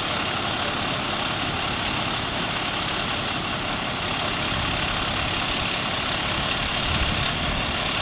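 An engine idling steadily: a continuous, even running noise that holds the same level throughout.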